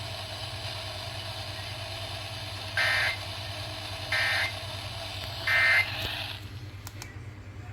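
Three short, warbling Emergency Alert System data bursts about 1.4 seconds apart: the end-of-message code that closes the warning. They sound over steady radio static and a low hum; the static fades about six and a half seconds in.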